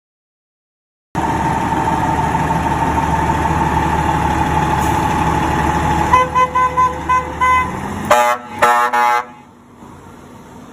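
Aerial platform fire truck pulling out on an emergency call: its engine runs loud and steady, then about six seconds in it gives a rapid string of short horn toots, followed by a few louder air-horn blasts, after which the sound drops away as it leaves.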